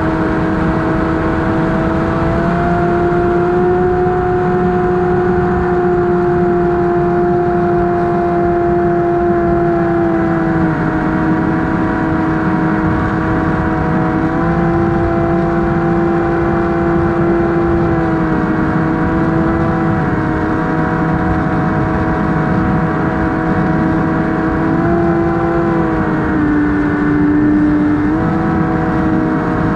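AtomRC Dolphin FPV plane's brushless electric motor and propeller whining steadily in flight. Its pitch steps up and down slightly a few times as the throttle changes, over a rush of wind on the onboard camera.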